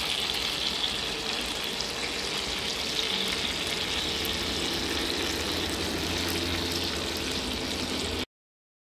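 Chicken breasts in butter sizzling in a hot cast-iron skillet: a steady sizzle with light crackles and a low hum underneath. It cuts off abruptly near the end.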